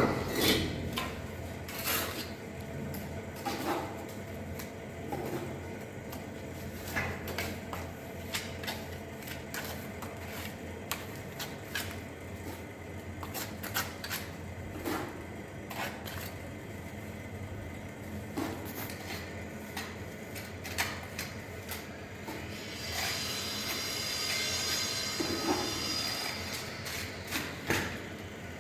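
Scattered knocks, clicks and scrapes of bricks and hand tools being handled during stove masonry work, over a steady low hum. Near the end a few seconds of rasping scraping.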